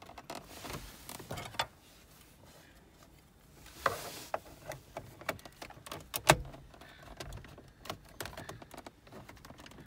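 Plastic trim clips on a Holden VE Commodore's centre console popping loose as the trim panel is prised off: scattered sharp clicks and snaps among handling rustle, the loudest snap about six seconds in.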